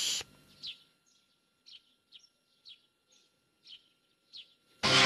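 Cartoon birdsong effect: a string of short, faint, high bird chirps, about two a second, each a quick downward flick. Loud music cuts in suddenly near the end.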